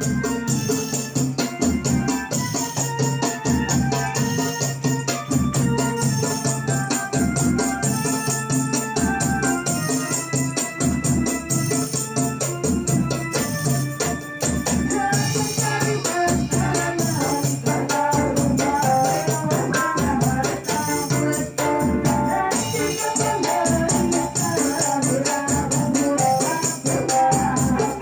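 Qasidah moderen ensemble playing a sholawat: an electric keyboard with an organ-like sound carries the melody over a steady beat of tambourines and frame drums, with voices singing along, more clearly in the second half.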